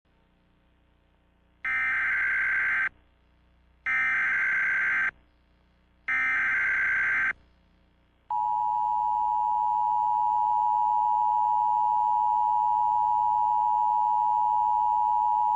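Emergency Alert System header: three one-second bursts of SAME digital data tones, evenly spaced, then about eight seconds in the steady two-tone EAS attention signal begins and holds. The sequence announces the start of a new emergency alert message.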